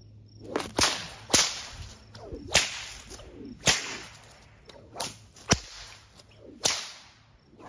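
A 14½-foot David Morgan cow whip cracked over and over in an attempt at multiple cracking: about seven sharp cracks at uneven spacing, with the whoosh of the thong between them. The rhythm doesn't settle, a sign that the multiple cracking is not going well with this whip.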